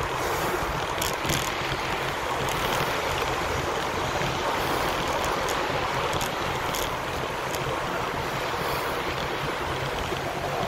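Steady rushing noise of riding along a wet road: tyres hissing on wet pavement with wind on the microphone, and a low rumble beneath.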